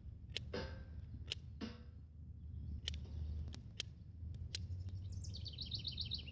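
A knife whittling a wooden stick to a point: a series of short, sharp cuts and a couple of longer scraping strokes. About five seconds in, a bird sings a rapid trill that steps down in pitch.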